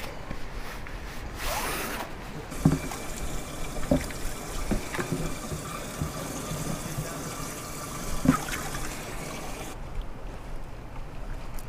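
Water trickling and sloshing in a live-bait bucket as a small dip net scoops out a baitfish, with a few light knocks.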